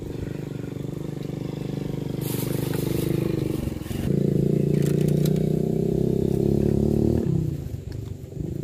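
An engine running steadily with a low, even hum. It gets louder about four seconds in and cuts off abruptly about seven seconds in.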